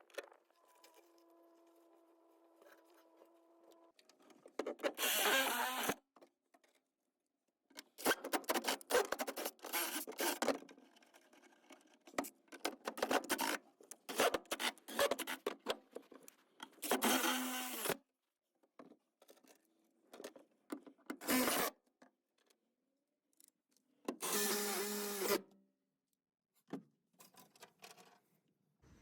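Repeated harsh bursts of hand-tool bodywork noise, each a second or two long, with silent gaps between them. A faint steady hum runs through the first few seconds.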